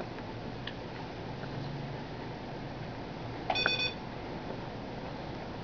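A single short electronic beep about three and a half seconds in, over a faint steady low hum.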